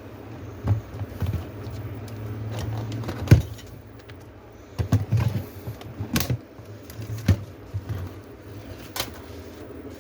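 Irregular clicks, taps and small knocks of laptop parts and tools being handled during disassembly, the sharpest knock about a third of the way in, over a low steady hum.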